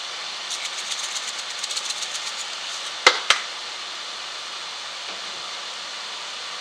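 Steady hiss of diced vegetables frying and steaming in a pan. About half a second in, a rapid run of small rattling ticks for roughly two seconds, as red chili flakes are shaken from a jar, then two sharp clicks in quick succession about three seconds in.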